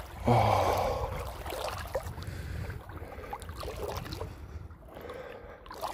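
Sea water sloshing and splashing around someone moving through it, loudest in the first second or so, then softer lapping, over a low wind rumble on the microphone.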